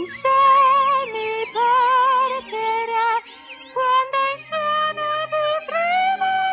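Music: a high female voice singing long held notes with a wavering vibrato, in short phrases with brief gaps.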